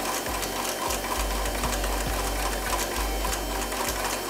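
Power hammer striking red-hot steel in a quick, even run of blows, about three a second, drawing out a knife's tang.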